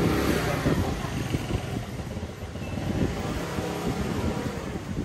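A motor vehicle passing close by on a busy street, loudest near the start and then fading, with people's voices murmuring in the background.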